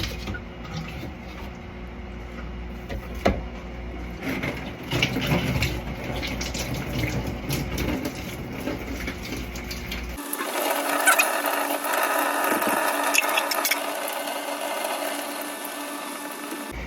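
Water running through a water heater's plumbing, with scattered knocks and handling noises for the first part. About ten seconds in, the sound switches abruptly to a steady rushing of flowing water.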